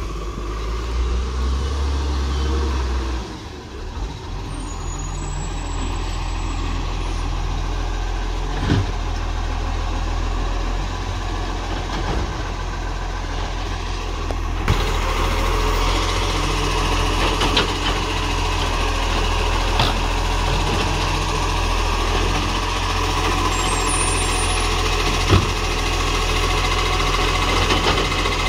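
Side-loader garbage truck's diesel engine running as the truck pulls up to a row of wheelie bins, growing louder about halfway through. A few sharp clunks stand out over the engine.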